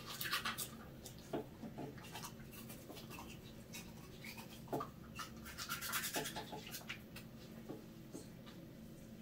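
Toothbrush scrubbing a cockapoo's teeth in short bursts of brushing strokes, with pauses between.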